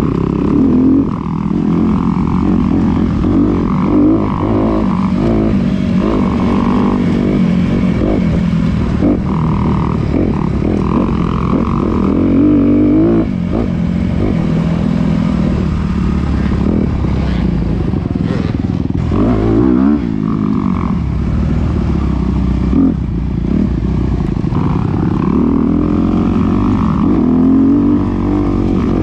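2021 Honda CRF250RX's single-cylinder four-stroke engine being ridden, heard from the rider's position, its revs rising and falling again and again with the throttle.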